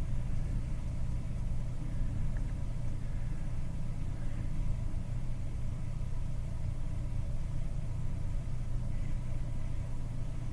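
Steady low mechanical hum and rumble, unchanging, from running workbench equipment.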